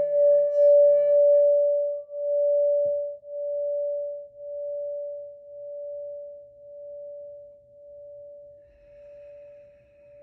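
Sacral chakra singing bowl ringing on one steady tone with a slow wobble of about one pulse a second. It is played for about the first second and a half, then left to ring, fading away gradually.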